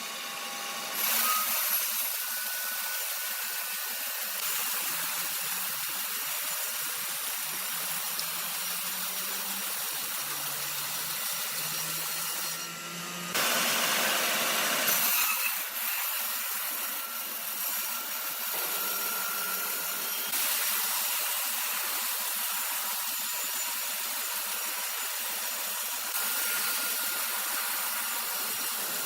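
A power saw cutting through wood: a steady, hissing rasp, louder for a couple of seconds near the middle.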